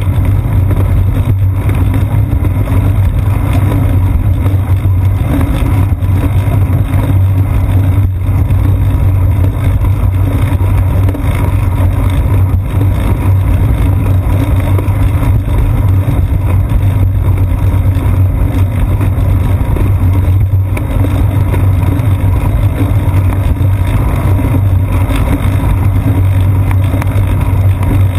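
Steady, loud low rumble of wind and road vibration from riding a bicycle along a concrete path, picked up by a seat-post-mounted GoPro Hero 2, with a few faint knocks.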